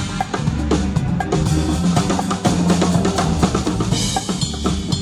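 Live band music led by close-up drums: a conga and other drums are struck in a busy rhythm over bass notes. A bright cymbal crash comes in about four seconds in.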